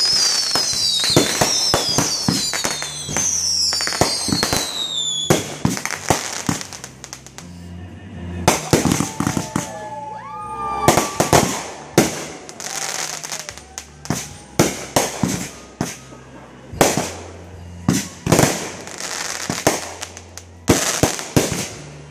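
Aerial fireworks going off in a rapid series of sharp bangs and crackling bursts. Several falling whistles sound together in the first five seconds.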